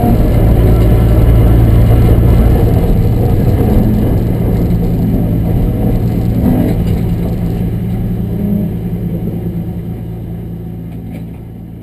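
BMW E36 M3 race car's straight-six engine running at a fairly steady pitch, heard loud inside the stripped, roll-caged cabin. It fades out gradually from about four seconds in.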